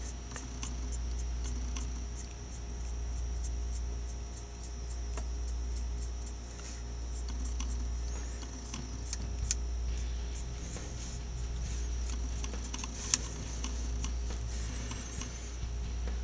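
Paintbrush dabbing and scratching on the plastic body of a scale model car, making faint scattered ticks, over a steady low hum.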